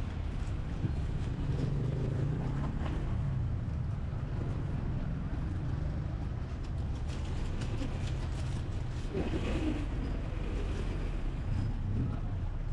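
City street traffic: a steady low rumble of car and tuk-tuk engines running and passing.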